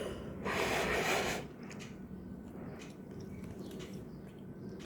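Someone eating a freshly microwaved brownie from a bowl: a short rush of noise lasting about a second, starting about half a second in, then faint soft ticks and chewing.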